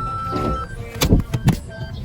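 Background music with a steady melody, and a few sharp knocks or thumps about a second in.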